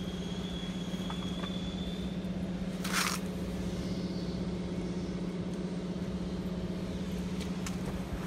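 Robin RS-HP825 backpack power sprayer's small four-stroke engine running at a steady speed, driving the sprayer pump. There is a short hiss about three seconds in.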